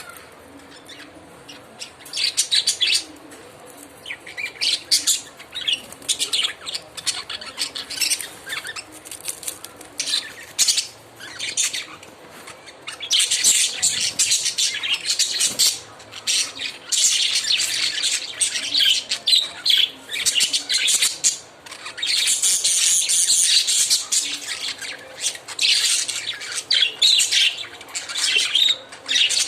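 Lovebirds chattering: rapid runs of shrill, high-pitched chirps and squeaky calls, sparse at first and near-continuous during the second half.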